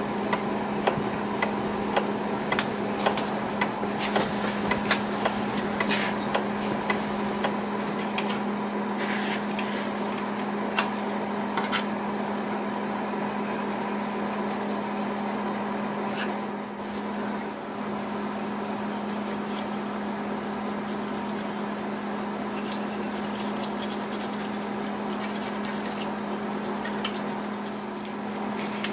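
Clock ticking, about one and a half ticks a second, over a steady low hum; the ticks fade out after seven or eight seconds. The hum then carries on with scattered light clicks and scrapes of hand work on the wooden case.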